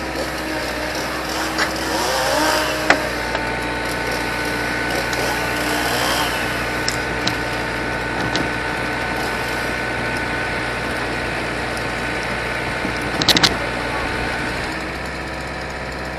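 Excavator engine running steadily at a constant pitch, with a sharp knock about three seconds in and a quick rattle of knocks about thirteen seconds in.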